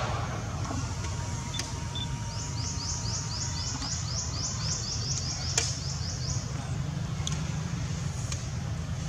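Steady low outdoor rumble, with a quick run of thin high chirps, about four a second, starting a couple of seconds in and lasting about four seconds.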